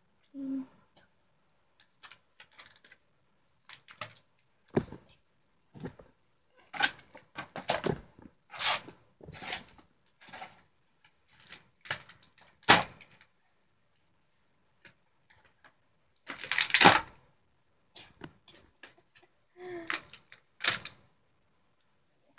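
Clear plastic toy packaging crinkling, clicking and snapping as it is cut and pried open with scissors, in irregular bursts. There is one sharp snap about halfway through and a longer crackling stretch a few seconds later.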